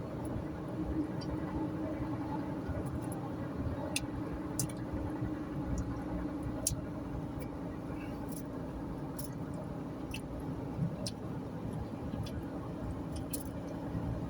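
Steady road and engine drone inside a moving car cruising on a highway, with a low hum held throughout and scattered light clicks.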